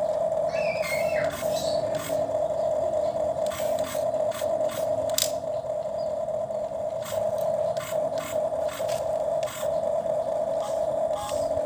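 Small toy electric motor running with a steady hum, with repeated sharp plastic clicks and scrapes from a toy excavator at work.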